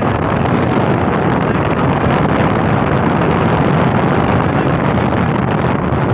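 Loud, steady wind rush over the microphone of a selfie-held phone while riding a motorcycle, with the bike's engine and road noise mixed underneath.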